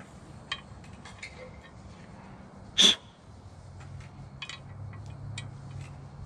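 Light clicks and taps of metal blower-rack parts being handled and fitted, with one short, loud sharp noise nearly three seconds in.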